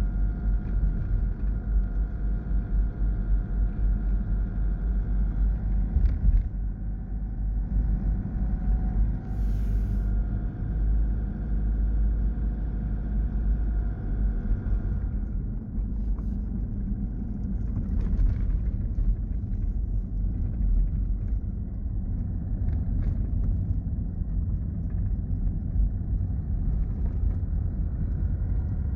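A 4x4 driving slowly, heard from inside the cabin: steady engine and tyre rumble, with a faint whine that fades out about halfway through.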